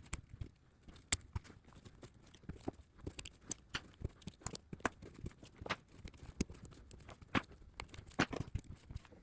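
Small picks and metal parts of a motorcycle fuel cap clicking and scraping as a rubber gasket ring is pried around its steel retaining ring: scattered, irregular light clicks and taps, with a few sharper knocks.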